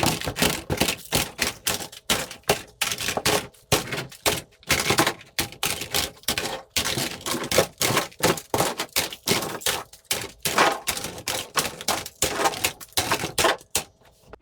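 Toy guns firing: a rapid, irregular run of sharp clicks and pops, several a second, with short gaps between runs.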